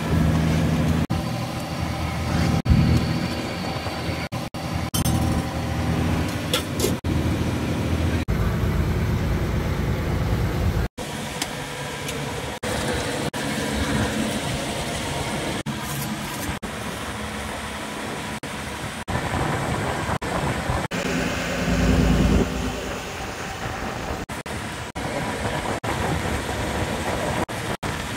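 Fishing boat's engine running steadily, its sound changing abruptly at several points along the way.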